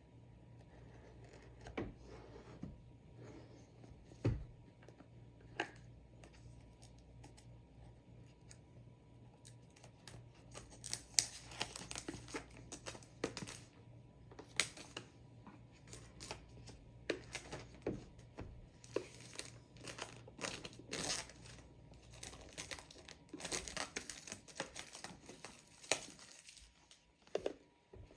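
Shipping packaging being torn open and crinkled by hand: scattered tearing and rustling, sparse at first and much busier after about ten seconds.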